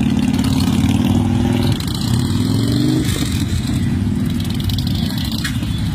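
Motorcycle engines running, with one engine revving up in a rising rev from about two seconds in.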